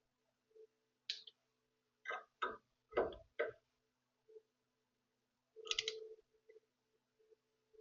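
A ratchet-type torque wrench clicking in short strokes, a series of sharp metallic clicks with a denser cluster about six seconds in, as a castle nut on the upper control arm is tightened to 50 foot-pounds. A faint steady hum runs underneath.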